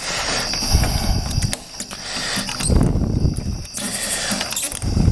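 Key being turned and worked in a stiff, old sliding-glass-door lock: scratchy metal clicking and rattling of the lock mechanism, with a few dull thumps from handling the door hardware.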